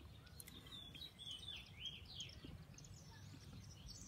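Faint birdsong: a run of quick sliding chirps over low steady outdoor background noise.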